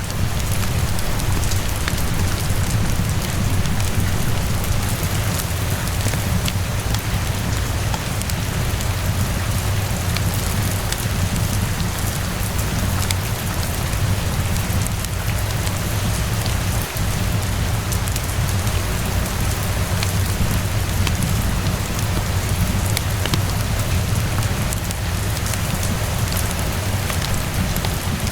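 Steady rainfall with a constant low rumble underneath, mixed with scattered sharp crackles from a wood fire.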